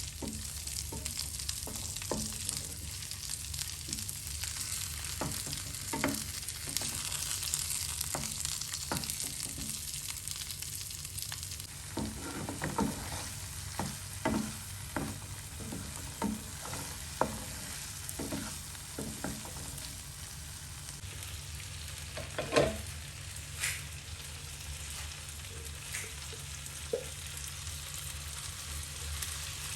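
Food sizzling in oil in a frying pan while it is stirred, the utensil knocking and scraping against the pan every second or so. The sizzle is stronger in the first half, and one knock about two-thirds of the way in is the loudest.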